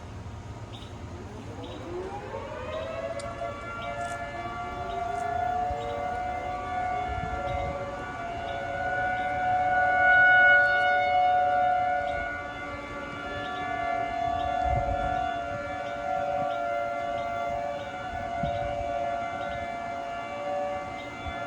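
Outdoor warning sirens sounding a test. A siren winds up from about a second in and settles into a steady wail, and a second siren at a slightly lower pitch winds up a few seconds later. The combined wail swells and fades about every four seconds.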